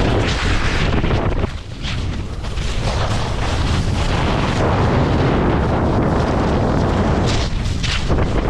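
Wind buffeting the microphone: a loud, rough rumble that gusts on and off, with brief lulls about a second and a half in and near the end.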